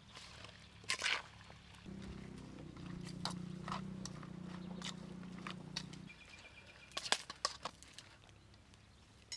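Hand mixing raw chicken wings in marinade in a stainless steel bowl, with scattered sharp clicks and clinks as the pieces and fingers knock the bowl. A low, steady drone runs for about four seconds in the middle.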